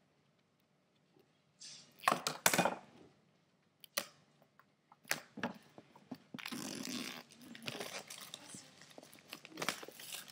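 Plastic shrink-wrap on an iPad 2 box being split and torn off: loud ripping about two seconds in, a couple of sharp clicks, then several seconds of crinkling as the wrap is peeled away.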